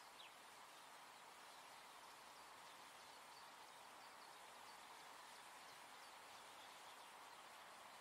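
Near silence: a faint, steady outdoor hiss with a few faint, high, brief bird chirps now and then.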